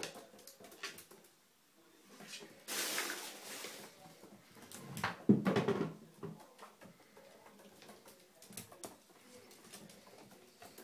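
Two pet ferrets playing in a bathtub: scattered clicks and scrabbling of claws on the tub. There are two louder noisy bursts, one about three seconds in and the loudest just after five seconds.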